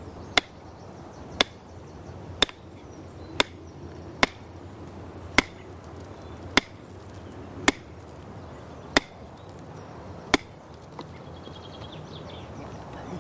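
Heavy hammer striking iron wedges driven between slips (feathers) in holes drilled in the rock, the old way of splitting stone: ten sharp blows about a second apart, the spacing widening a little toward the end, then the blows stop.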